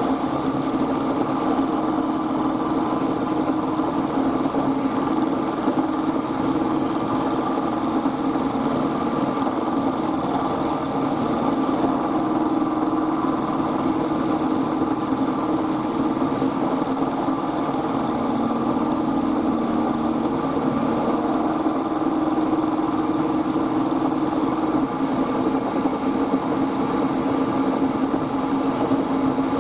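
A workshop machine running steadily: a motor hum over a dense hiss, its pitch dipping slightly now and then as if under changing load.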